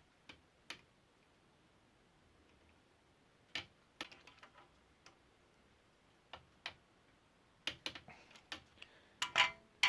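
Scattered sharp metal clicks and clinks of a wrench working on a vintage bicycle bottom bracket's threaded fixed cup as it is tightened into the frame shell, coming more often in the last few seconds and ending with a louder clink that rings briefly.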